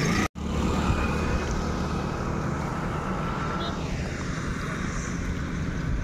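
Motor vehicle running with steady engine and road rumble, broken off for a moment just after the start, with a faint falling whine about three and a half seconds in.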